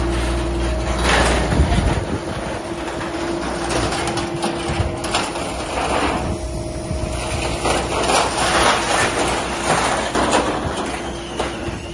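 Liebherr LH40 scrap material handler working with its grab: a steady engine and hydraulic hum under repeated, irregular clanking and rattling of steel scrap as the grab picks up and shifts parts of a scrapped fork truck. The clatter swells several times.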